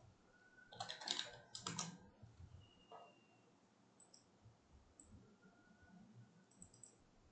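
A quick run of computer keyboard keystrokes about a second in, followed by a few scattered faint mouse clicks.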